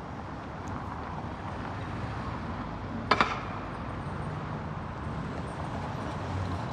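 City street ambience with a steady hum of distant traffic. About three seconds in come two sharp clacks in quick succession.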